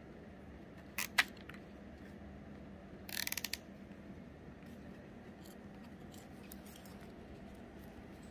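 Plastic cable tie being pulled tight through its ratchet head: a quick run of ratcheting clicks about three seconds in, after two sharp clicks about a second in.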